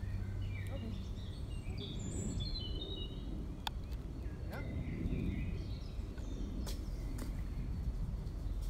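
Songbirds chirping and whistling in short phrases over a steady low rumble, with a few sharp clicks.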